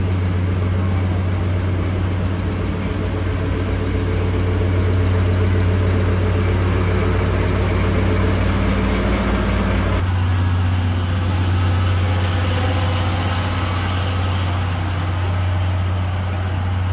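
JNR DE10 diesel-hydraulic locomotive's V12 diesel engine idling: a loud, steady low drone. The deepest rumble drops away abruptly about ten seconds in while the drone carries on.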